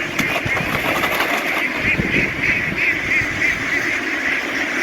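A large flock of domestic ducks calling all at once, many overlapping quacks merging into a dense, steady din like a swarm of bees.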